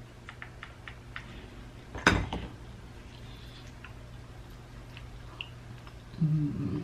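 Handling a plastic sunscreen container with slippery hands: a few light clicks, then one sharp tap or snap about two seconds in, over a low steady hum.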